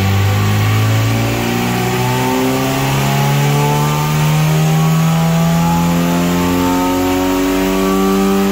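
Samand Soren's XU7 1.8-litre four-cylinder engine, fitted with aftermarket headers, at full throttle on a chassis dyno during a power run, its revs climbing steadily through the gears' pull toward the top of the rev range.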